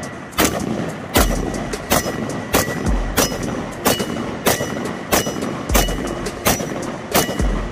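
Mk18 Mod 0 5.56 mm short-barrelled carbine firing about a dozen semi-automatic shots at a steady pace, roughly one every two-thirds of a second, each crack trailing off in echo.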